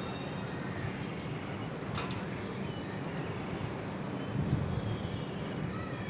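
Steady city background hum with a few faint bird chirps, and a single sharp click about two seconds in.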